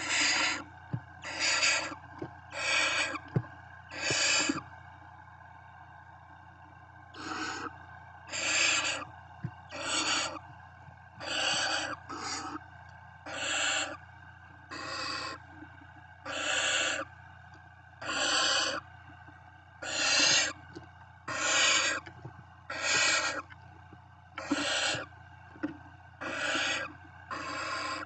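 Barn owl chicks giving their rasping, hissing begging calls, the 'snoring' of nestlings. Each call is a short hiss of under a second, repeated about every second and a half, with a pause of a couple of seconds near the start.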